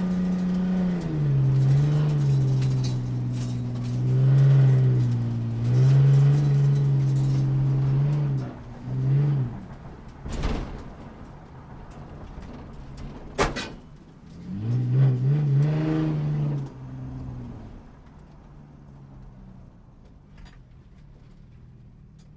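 Sports car engine revving up and falling back several times in a row, with two sharp short sounds in the middle, then dropping to a quieter low hum near the end.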